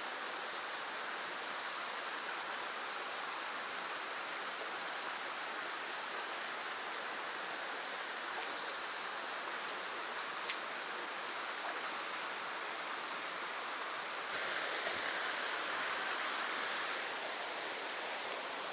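Shallow mountain stream running over stones: a steady rush of water. A single sharp click sounds about ten and a half seconds in, and the water grows a little louder for a few seconds near the end.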